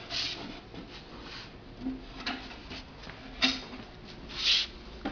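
Wooden table panels being handled and fitted together, with several short, scattered rubbing and scraping sounds as the side panel's pegs are worked into the holes in the base.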